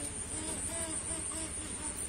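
Rain falling steadily, with a steady high-pitched whine and faint, short, low calls repeated several times a second.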